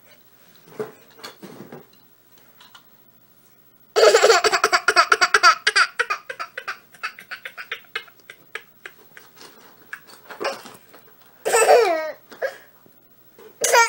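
Toddler girl laughing: a sudden burst of rapid, pulsing laughter about four seconds in that trails off over the next few seconds, then two more short, loud bursts of laughter near the end.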